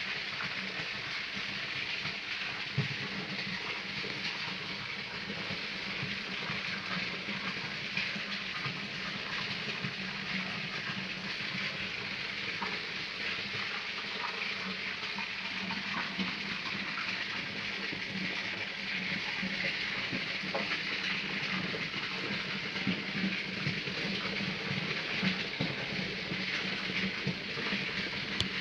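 Steady hiss of running, trickling water over a low steady hum, with scattered faint crackles, as from a tank's water circulation and pump.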